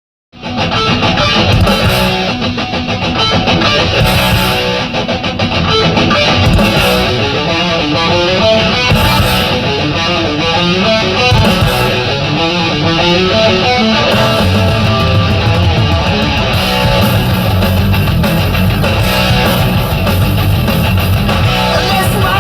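Heavy metal song led by electric guitar, starting about half a second in.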